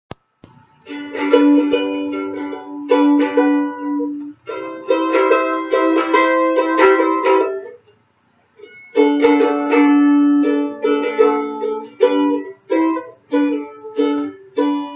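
A small plucked string instrument strummed in chords, stopping and starting, by a player out of practice for many years. There is a break about halfway through, then a run of short, separate chord strikes.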